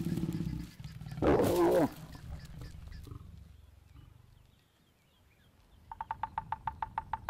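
Lions growling low, then a loud snarl from the lioness about a second and a half in, after mating. Near the end a woodpecker drums on dead wood: a quick, even run of about a dozen taps.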